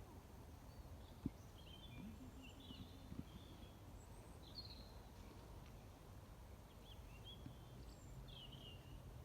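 Faint, scattered chirps and twitters of small birds over a low outdoor rumble, with a single sharp click about a second in.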